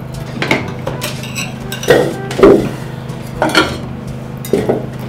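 Plastic serving spoon knocking and scraping against a food flask and plates while food is dished out: about five separate clattering knocks, over a steady low hum.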